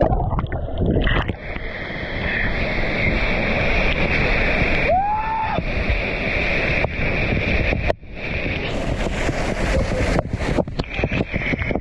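Steady rush of falling and churning water from a waterfall, with wind buffeting the microphone. A brief rising-then-falling call cuts in about five seconds in.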